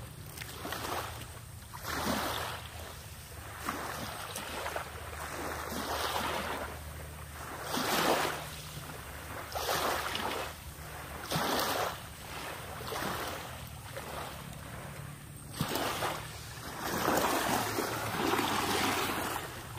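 Small waves washing onto the shore in surges that swell and fade every couple of seconds, over a steady low wind rumble on the microphone.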